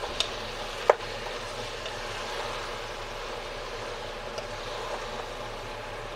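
Wooden spatula stirring chopped tomatoes and vegetables in a large pot over the heat, with a steady sizzle and two knocks of the spatula against the pot in the first second.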